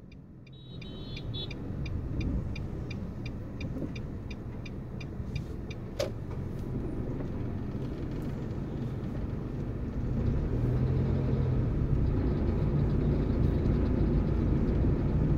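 Car running and tyres on the road, heard from inside the cabin, growing louder as the car picks up speed about ten seconds in. For the first five seconds a steady ticking comes about three or four times a second, and a single sharp click follows about a second later.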